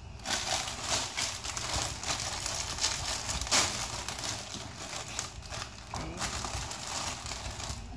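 Plastic bread bag crinkling and rustling as burger buns are pulled out of it and set down, a continual crackly rustle of many small sharp crackles.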